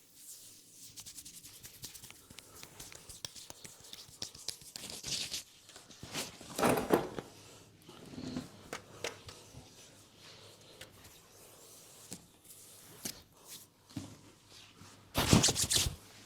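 Hands rubbing and scrunching hair and scalp in a head massage: a close, crackling rustle made of many small clicks, with louder bursts of rubbing about six and a half seconds in and again near the end.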